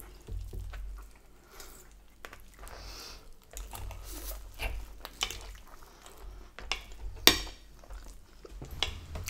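Knife and fork scraping and clinking on china dinner plates as food is cut, with close-up chewing; one sharper clink about seven seconds in.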